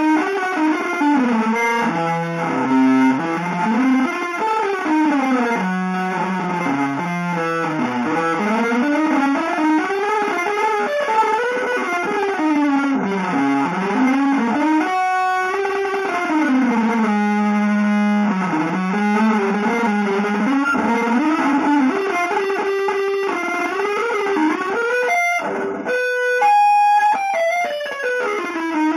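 Electric guitar playing a free improvisation without a melody, its notes sliding up and down in pitch almost without pause, with a few short breaks near the end.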